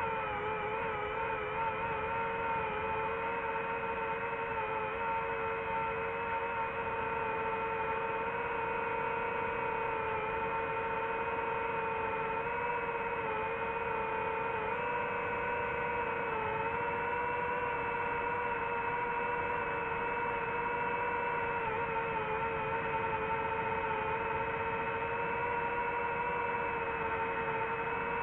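DJI FPV drone's motors and propellers giving a steady high-pitched whine with a stack of overtones, the pitch wavering slightly now and then with throttle changes.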